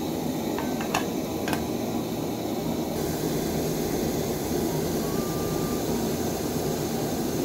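Soto Fusion Trek canister stove burner running steadily at full flame, heating a lidded pot of water to the boil. A pot lid clinks twice about a second in as it is settled on the pot.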